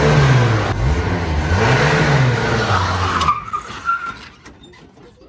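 Pickup truck engine revved up and let back down twice, then cut off suddenly about three seconds in.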